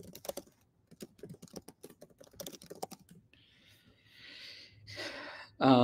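Typing on a computer keyboard: a quick, uneven run of key clicks for about three seconds. It is followed by a soft hiss, and a man's voice starts just before the end.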